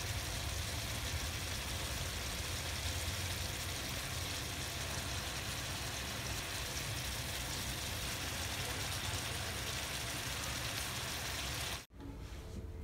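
Shrimp sizzling in hot butter and oyster sauce in a pan: a steady crackling hiss over a low hum. It cuts off abruptly near the end.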